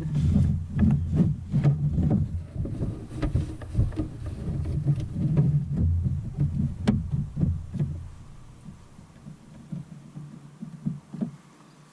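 Handling of a plastic kayak seat bottom and push rivets: repeated knocks and clicks over low rubbing noise, falling to a few scattered clicks after about eight seconds.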